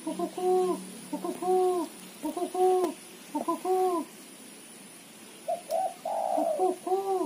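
Female spotted dove giving its rapid 'ketrekan' call: quick runs of short coos that rise and fall in pitch, with a pause of about a second and a half partway through and a rougher, harsher note about six seconds in.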